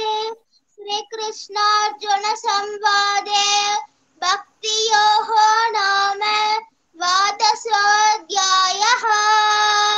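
A boy chanting Sanskrit prayer verses to a simple sung tune, in phrases that mostly hold one level note, with short breaths between them.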